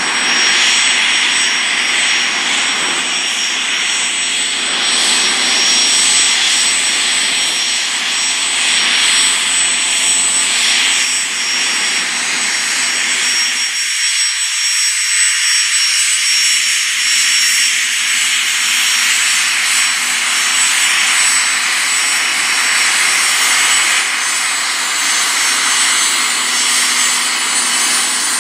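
Embraer Legacy business jet's twin turbofans running at taxi power, a steady loud rush with a high whine. About halfway through, the lower rumble drops away abruptly.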